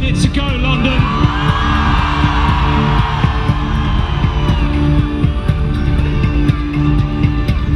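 Loud music with guitar and a steady bass, with a crowd's voices mixed in underneath.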